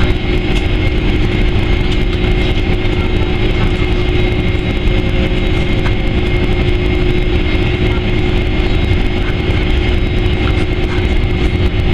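Cabin noise inside a taxiing Boeing 767-300ER: the jet engines and cabin air system make a steady loud drone with a constant low hum and a thin high whine.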